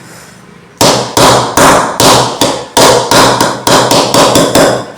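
Utensil knocking sharply and repeatedly against cookware, about three strikes a second, starting about a second in.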